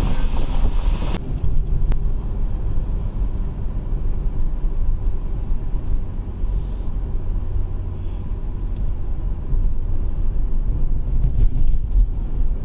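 Wind noise on the microphone that cuts off about a second in, then the steady low rumble of a car driving on a highway, heard from inside the cabin: road and engine noise.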